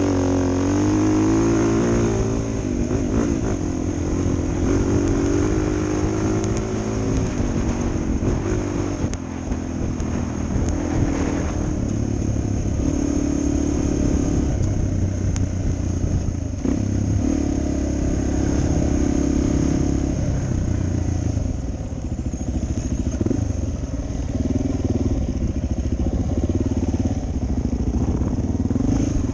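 Suzuki DR 400 single-cylinder dual-sport motorcycle engine running under way, its pitch rising and falling with throttle and gear changes and holding steady in between.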